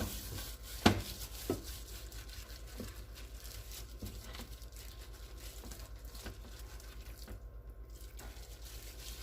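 Kitchen handling noise as adobo seasoning is shaken onto and worked into a raw chuck roast: rustling and light patter, with a sharp click about a second in and a smaller one half a second later.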